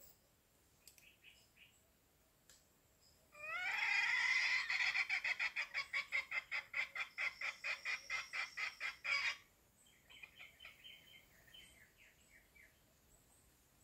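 Chicken calling: a call rising at the start, then a rapid run of short clucks lasting about six seconds that stops abruptly.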